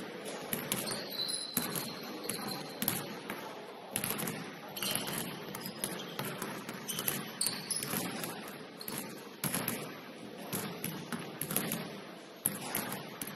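Several basketballs being dribbled at once on a hardwood court, bouncing in an irregular overlapping patter, with a few short high squeaks. The bounces echo in a large gym hall.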